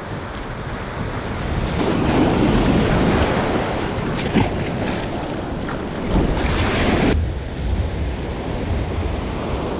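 Ocean surf washing up the beach with wind buffeting the microphone. From about two to seven seconds in, louder close-up splashing and churning of foamy water in the shallows, which stops abruptly.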